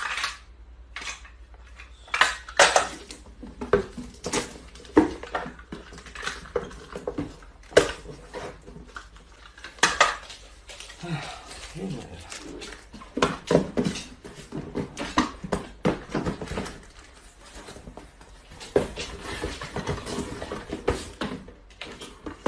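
Cardboard boxes being handled and taped shut with a packing-tape dispenser: irregular knocks, taps and scrapes, with the rasp of tape pulled off the roll.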